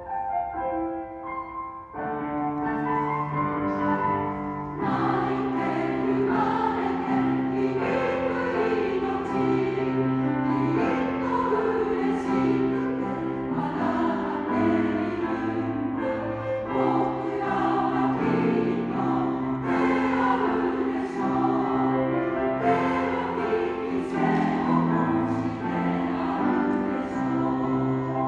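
Choir singing with piano accompaniment, the sound filling out over the first few seconds as more voices come in.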